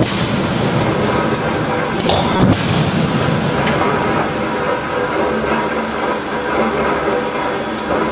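Forge shop machinery running with a loud, steady hissing din, broken by a few sharp impacts in the first three seconds.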